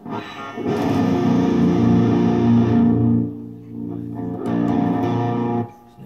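Electric guitar chord ringing out through a Peavey XXL TransTube amplifier head. Its treble and level dip about halfway through and swell back as the amp's knobs are turned, and the pots turn without crackling. The chord is cut off shortly before the end.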